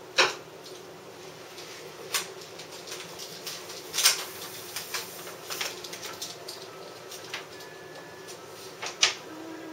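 Sheet of self-adhesive faux stainless steel vinyl film crackling and snapping as it is handled and smoothed by hand onto a refrigerator door, in a few sharp separate crackles a couple of seconds apart, over a steady low hum.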